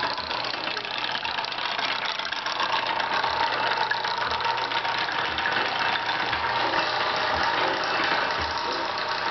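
Cement mixer motor running steadily, turning a long spindle shaft that twists yarn, with a steady low hum and a low knock about once a second.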